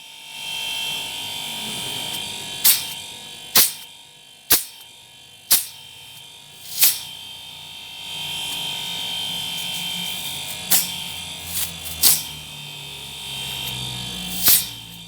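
A steady electric buzz, like a small motor running, with a series of about nine sharp knocks and clicks scattered through it, and a low rumble that grows louder after the middle.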